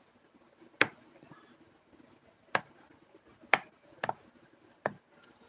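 A handful of sharp, short clicks or taps at irregular intervals, about a second apart, with a quick double tap near the end.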